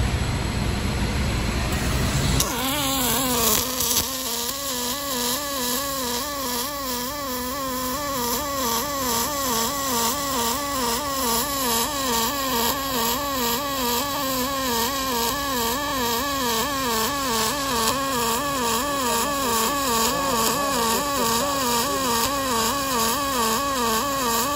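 MIG welding arc on aluminium from a Migatronic Sigma Select 400 running 1.2 mm aluminium wire under pure argon: a steady buzz whose pitch rises and falls about twice a second. It starts about three seconds in, after a low rumble.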